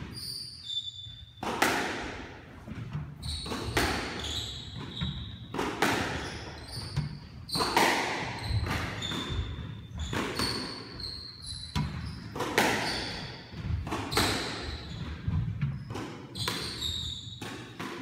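A squash rally: the ball cracks off rackets and the court walls about one to two times a second, each hit ringing in the walled court. Short high squeaks from court shoes on the hardwood floor come in among the hits.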